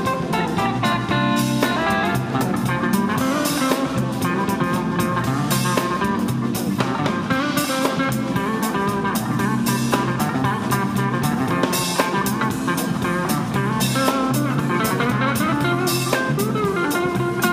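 Live soul-jazz band playing a steady groove: hollow-body electric guitar over electric bass and a drum kit, with keyboard.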